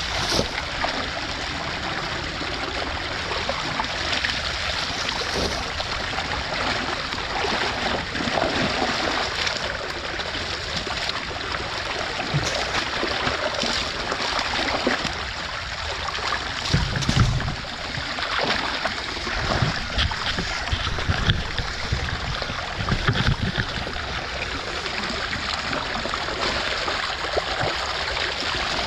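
Creek water rushing and gurgling through a gap pulled open in a beaver dam, with splashing as wet leaves and debris are dragged out of the flow. A cluster of low thumps and splashes comes a little past the middle.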